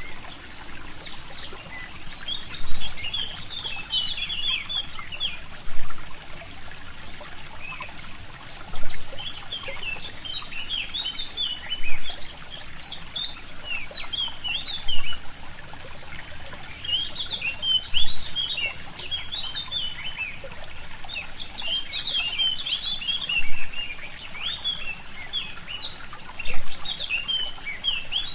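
Forest birds singing in bouts of quick chirping phrases over a steadily trickling stream. A short low thump recurs about every three seconds and is the loudest sound.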